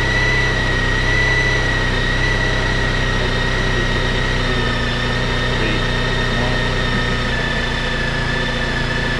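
Honda ST1300's V4 engine idling through its stock exhaust at a cold-engine fast idle of about 2000 RPM, steady, with the revs easing down slightly as it warms.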